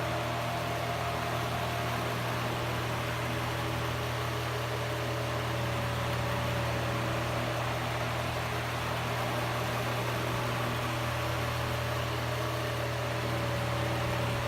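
Hoover model 6716 14-inch oscillating desk fan running on high speed while oscillating: a steady motor hum over the rush of air.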